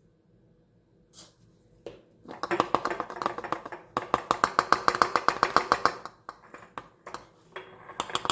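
Rapid light tapping and clinking of a small spoon against a bottle as dried rosemary is knocked into it. It starts about two seconds in and runs at about ten taps a second, then thins to a few scattered taps.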